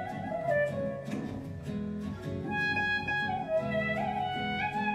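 Korg Kronos synthesizer workstation played live: an ornamented lead melody that slides between notes, over bass, chords and a steady beat.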